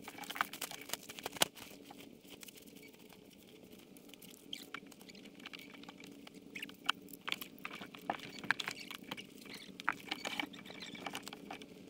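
Scattered light crackles and rustles of people moving about in dry leaves and brush and handling gear, over a faint steady hum.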